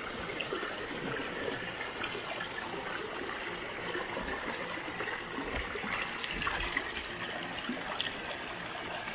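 Shallow mountain creek flowing over rocks: a steady trickling and rushing of water.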